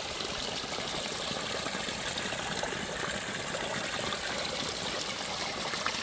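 Spring water running steadily along a hollowed-log trough and pouring off its end.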